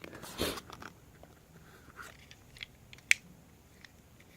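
Plastic fidget cube being worked by hand: a short rustle, then a few sharp, separate clicks from its buttons and switch, the loudest about three seconds in.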